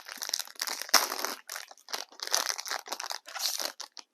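Trading card pack wrappers crinkling and tearing as packs are opened, in a run of short, irregular rustling bursts.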